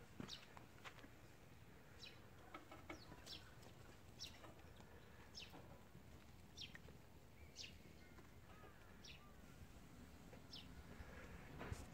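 Faint small-bird chirps, short single notes about once a second, over quiet outdoor background.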